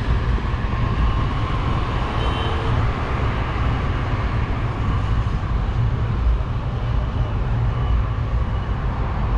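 Steady running noise of a moving passenger train, heard from inside the carriage at an open window.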